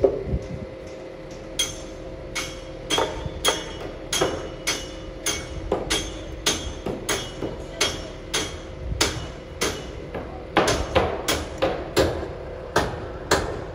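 Sharp, regular hammer blows, about two a second, starting about a second and a half in: a worker hammering on concrete slab formwork. A steady machine hum runs underneath.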